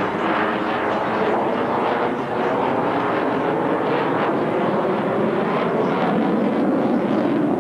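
Twin-engine military aircraft flying over at an air show, its engines running steadily and loudly without a break.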